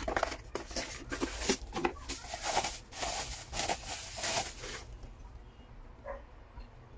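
Cardboard box flaps and bubble wrap rustling and crinkling as the packing is handled and pulled open, with many small crackles; the handling stops about five seconds in.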